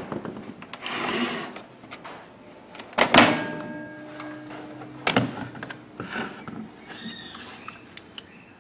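Microwave oven's sheet-metal body and door being handled: clicks and knocks, with a loud metallic clank about three seconds in that rings on briefly, another knock a couple of seconds later, and faint squeaks near the end.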